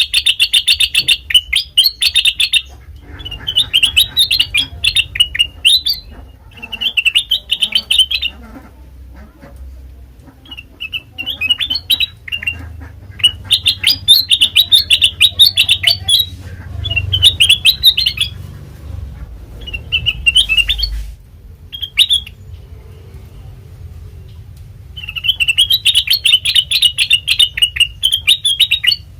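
Kutilang emas, a bulbul, calling in repeated bursts of rapid, high chirping. Each phrase lasts one to three seconds, with short pauses between phrases. A faint low hum runs underneath.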